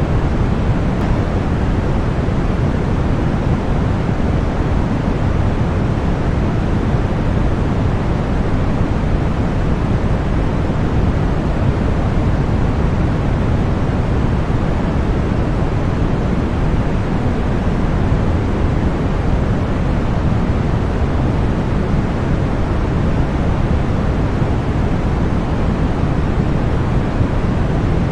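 Continuous synthetic white noise for sleep and tinnitus masking: a steady, unchanging rushing hiss, weighted toward the low end with the highest frequencies rolled off.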